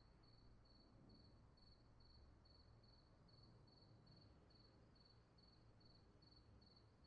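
Near silence: a pause in a recorded lesson, with only a very faint high-pitched pulsing tone, about two pulses a second, over low hiss.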